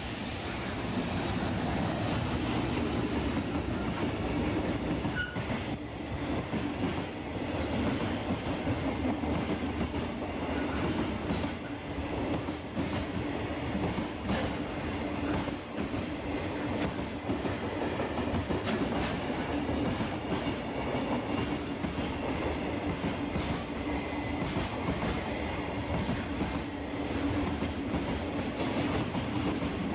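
Freight train rolling past: a long, steady run of wagons with wheels clacking over rail joints over a continuous hum.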